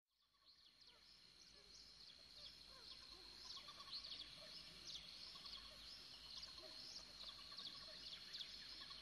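Faint chorus of songbirds: many short, quick chirps repeating over a steady thin high tone, fading in from silence over the first second.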